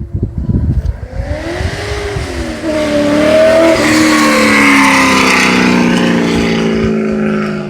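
A motor vehicle driving past close by: its engine tones rise, then slide down in pitch, over a broad rush of road noise. It is loudest in the second half and falls away quickly near the end.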